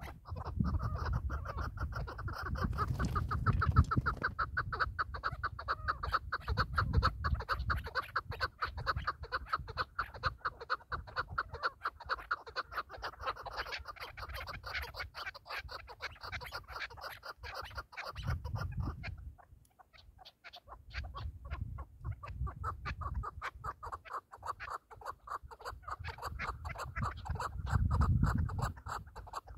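Chukar partridges calling: a long run of rapid, evenly repeated clucking notes that breaks off a little past midway and then starts again. Gusts of wind buffet the microphone now and then.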